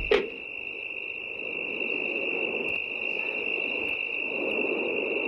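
Engine of an old pickup truck running after about sixty years out of use, with a steady high-pitched whistle over a low noisy hum. Two sharp knocks come right at the start.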